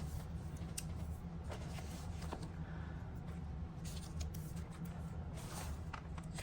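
Pages of a paper book being leafed through and handled: soft rustles and small scattered clicks of paper, over a steady low hum.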